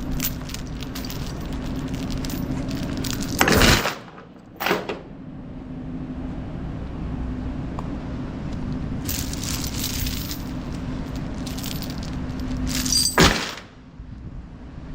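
Steel tie-down chains clanking as they are handled and thrown over cable reels on a flatbed trailer, with two loud metallic clanks about three and a half seconds in and near the end, and lighter rattling in between, over a steady low hum.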